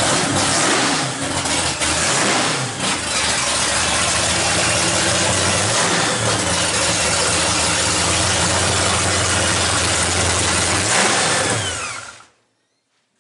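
Carbureted Chevrolet V8 in a Corvette drag car, with a lumpy cam and open headers, running loud, then switched off about twelve seconds in and cutting out within a fraction of a second.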